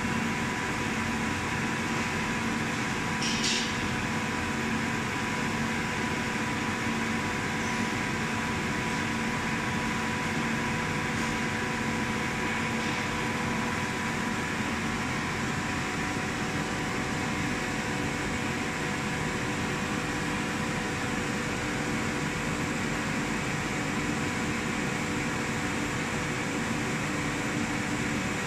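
CO2 laser cutting and marking machine running as it works a sheet of two-colour PU: a steady mechanical hum and hiss with a few steady tones, and a short high hiss about three seconds in.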